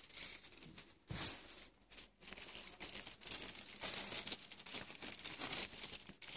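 Close handling noise: cloth rustling and crinkling against the microphone, full of small crackles, with a dull bump about a second in.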